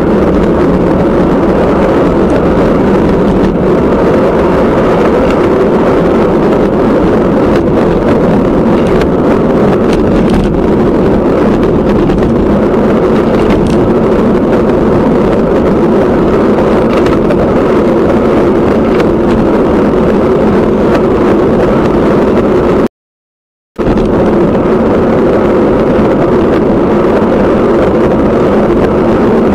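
Steady, loud wind rush buffeting the camera's microphone, cutting out completely for about a second roughly three-quarters of the way through.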